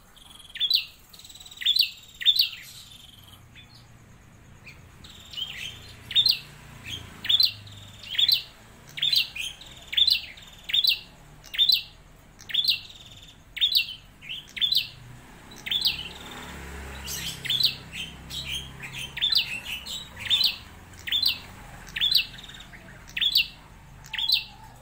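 Caged prenjak klawu singing: a long run of loud, sharp notes, each a quick downward sweep, repeated about once or twice a second.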